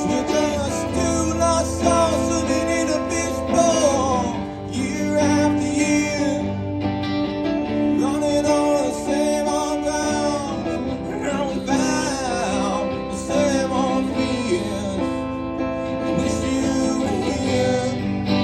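A live duo performing a song: guitar playing chords under a male lead vocal.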